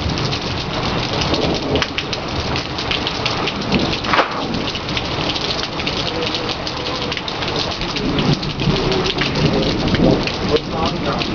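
Heavy thunderstorm rain pouring down, dense drops hitting close to the microphone, over a low rumble of thunder.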